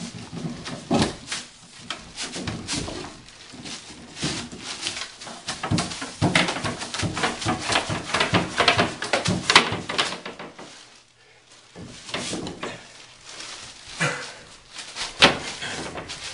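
Plastic plumbing pipe being handled and worked inside an opened wall cavity: a busy run of knocks, clicks and scrapes for about ten seconds, then a brief lull and a few louder knocks near the end.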